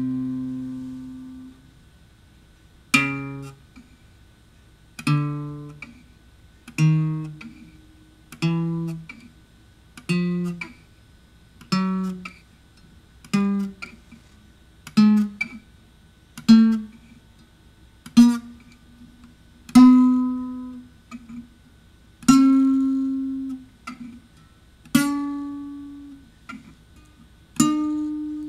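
Acoustic guitar with single notes plucked one at a time, about every two seconds, each ringing and fading away. The pitch steps higher from note to note as the string is fretted further along the neck, shortening the part of the string that vibrates.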